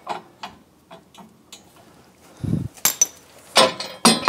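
Metal hand tools and hardware being handled: a few faint clicks, a dull thump about two and a half seconds in, then several sharp metallic clinks and clanks, the last one ringing briefly.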